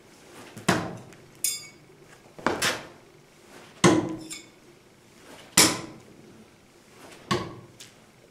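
Throwing knives hitting a wooden target: a series of sharp knocks every one to two seconds, one of them followed by a brief metallic ringing, as of a knife glancing off rather than sticking.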